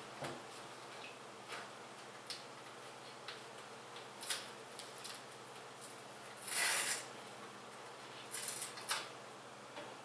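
Scattered small clicks, taps and brief rustles of hands handling computer parts and fittings, with a louder half-second rustle about two-thirds of the way through and a quick cluster of clicks near the end.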